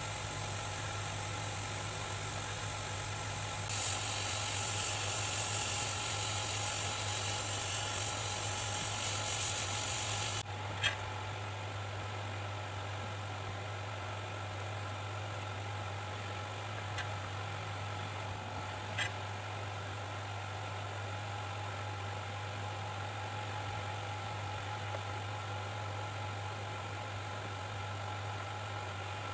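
Steady electrical hum with a whirring background. About four seconds in, a loud airy hiss joins it and stops abruptly about ten seconds in. Then come a sharp click and a couple of faint ticks.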